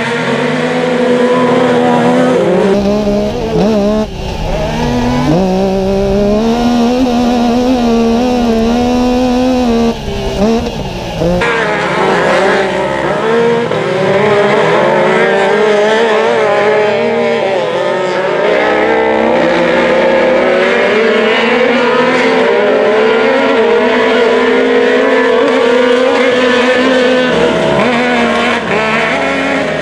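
Several Yamaha YXZ side-by-sides racing on a dirt track, their three-cylinder engines revving up and down, the pitch climbing and dropping again and again as they accelerate and shift.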